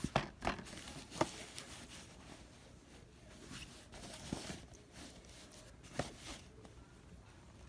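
Handling noise: a few sharp clicks and taps, most of them near the start and one about six seconds in, over faint rustling.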